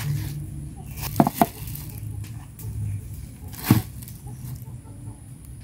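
Plastic grocery bags crinkling as food is handled and set down on a wooden table, with two short louder sounds about a second in and another near the middle.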